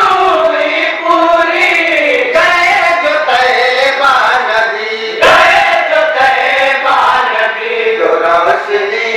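A group of young men chanting in unison into a microphone, a melodic vocal line with long held and gliding notes.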